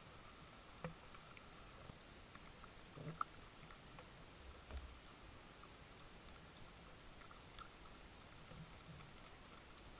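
Near silence: a steady faint hiss with a few soft clicks and taps, the loudest a little after three seconds in.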